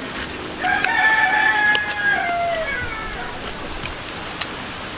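A rooster crowing once: a single drawn-out call of about two seconds that drops in pitch as it ends.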